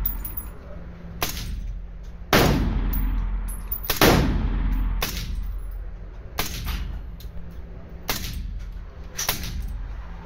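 Irregular gunshots at an indoor range, about seven in all, each with a ringing echo off the walls: a suppressed AR rifle firing subsonic 300 AAC Blackout handloads, mixed with shots from other shooters on the line. The two loudest come about two and four seconds in.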